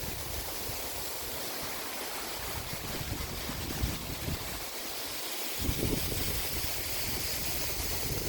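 Waterfall rushing steadily, with gusts of wind buffeting the microphone in the second half.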